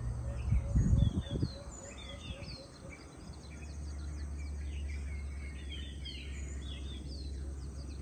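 Several small birds chirping and twittering at dusk, many short high notes overlapping, with a lower note repeating about four times a second that stops after about two seconds. A few loud low thumps about a second in, over a steady low rumble.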